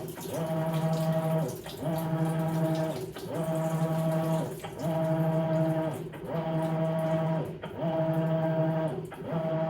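Maytag Bravos XL top-load washer agitating a load of bedding: the drive motor hums in even strokes a little over a second each, its pitch gliding up as each stroke starts and down as it ends, with short dips between, about eight strokes in all.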